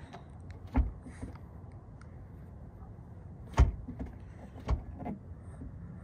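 Rear hatch latch and release button of a Scion tC clicking and knocking four times as the release is worked, the third the loudest. The hatch is acting erratically, which the owner puts down to a faulty release button.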